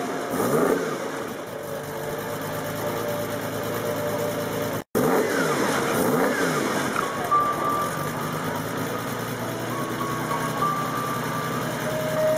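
1976 Lancia Stratos V6 engine running at idle and blipped with short revs that rise and fall back, a couple just after the start and a few more about five seconds in. The sound drops out for an instant just before the second group of revs.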